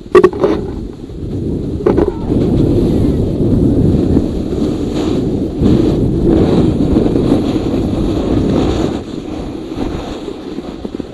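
Steady rumbling noise of a snowboard sliding and scraping over packed snow, mixed with wind buffeting the action camera's microphone, with two brief sharp sounds in the first two seconds.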